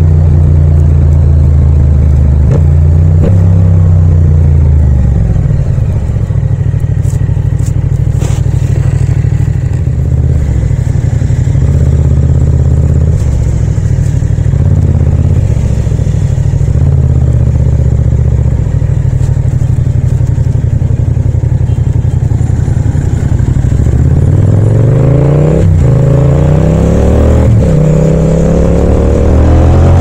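Yamaha MT-07's parallel-twin engine and exhaust running steadily while riding. Near the end it accelerates, the pitch rising, dropping at a gear change and rising again.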